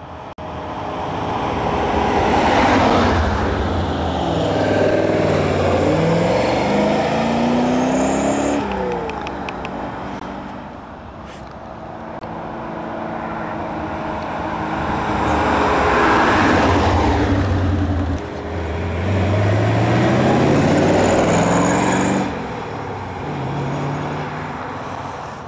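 Maserati Khamsin's V8 driven past: the engine note climbs steadily as the car accelerates, then drops off suddenly. It builds and climbs the same way a second time before dropping off again near the end.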